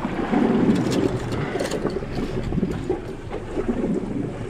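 Small boat at sea: water washing against the hull and wind buffeting the microphone, with a few light clicks.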